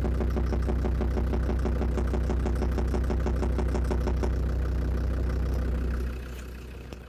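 Land Rover Defender Td5 five-cylinder turbodiesel idling, picked up at the snorkel's air intake, with a fast, even knock riding on the engine note; the owner takes faulty hydraulic lifters for the most likely cause. About six seconds in the sound drops away sharply.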